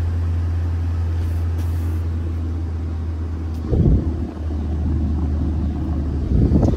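Ford F450's 6.8-litre V10 gas engine idling steadily, heard from inside the cab as a low hum. There are two brief louder rumbling bumps, about four seconds in and again near the end.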